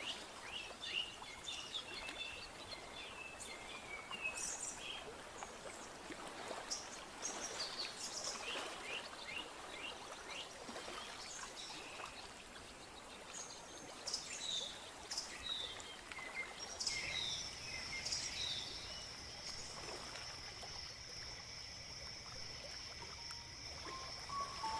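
Nature ambience: birds chirping and calling over an even hiss like running water. About two-thirds of the way through a steady high-pitched tone joins in.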